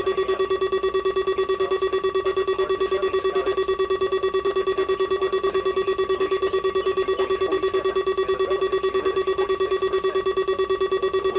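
Weather alert radio's alarm going off: a buzzy tone pulsing on and off rapidly and evenly, with no break.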